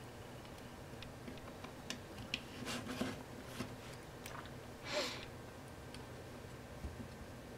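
Light metal clicks and taps of a small Allen key being picked out and handled, with a short scraping rustle about five seconds in.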